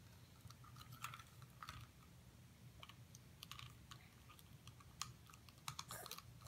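Faint scattered plastic clicks and taps of a small Imaginext toy figure being handled and its parts turned by hand, a few more together near the end.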